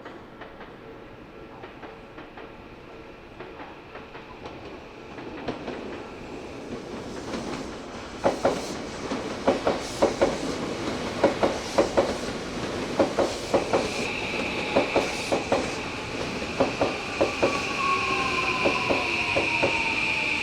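Odakyu Odawara Line electric train passing over a level crossing. A rumble builds, then the wheels clack over rail joints from about eight seconds in. A high steady squeal joins about halfway through, and a tone falls in pitch near the end.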